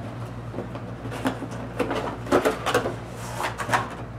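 A cardboard box sleeve sliding off a clear plastic packaging tray, with a run of short scraping rustles and light plastic knocks.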